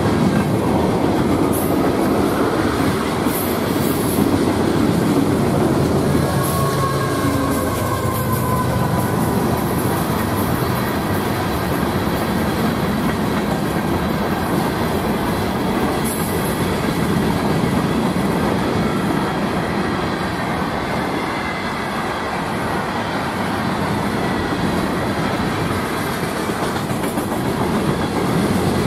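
Freight cars rolling steadily past: a continuous rumble of steel wheels on rail, with rhythmic clacking over rail joints. A thin wheel squeal rises briefly a few seconds in.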